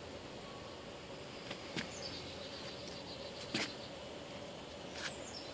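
Steady outdoor background hiss with a faint constant hum, broken by three sharp clicks of a phone being handled. Brief high chirps follow two of them.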